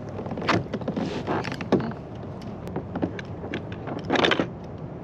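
A hooked sheepshead splashing and thrashing at the surface beside a kayak as its line is pulled in by hand, heard as several short splashes and knocks, the longest a little after four seconds in.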